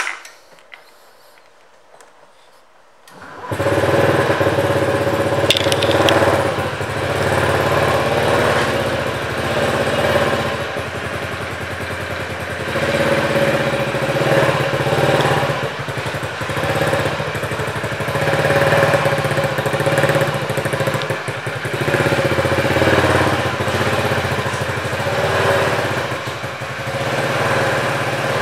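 2017 Honda Ruckus scooter's small single-cylinder four-stroke engine, fitted with a Two Brothers Racing aftermarket exhaust, starting about three seconds in and then running steadily with gentle swells in level.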